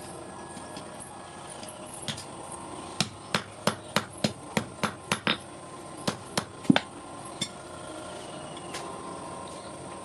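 Hand hammer striking hot iron on an anvil while forging an S hook: a run of sharp metallic blows, about three a second, then a few slower, spaced strikes.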